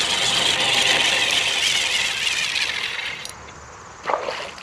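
Fishing reel cranked fast, a steady whirring gear rattle that stops suddenly about three seconds in, followed by a brief knock.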